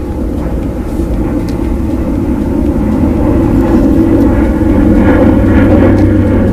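Aircraft engine drone passing overhead: a low steady drone that grows gradually louder.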